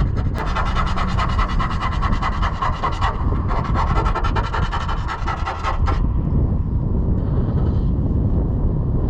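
Metal rasping at a freshly drilled hole in the van's sheet-metal body, in two runs of about two and a half seconds each. Steady wind rumble runs underneath.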